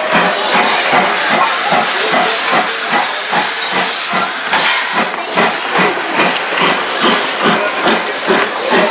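Steam locomotive made up as Thomas the Tank Engine hissing as it lets off steam, a dense high hiss from about a second in until about four and a half seconds in. Under it runs a fast, even pulsing of about four beats a second.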